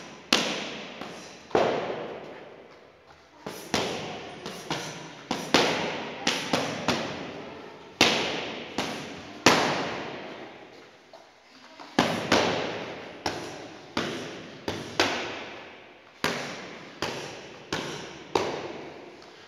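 Boxing gloves striking focus mitts in a pad drill: sharp smacks, often two to four in quick succession, with pauses of a second or two between combinations. Each smack rings on briefly in the hall.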